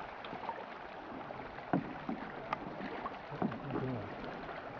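Canoes being paddled on open water: a steady wash of water and wind noise with scattered soft knocks and splashes from the paddles, the loudest knock a little under two seconds in.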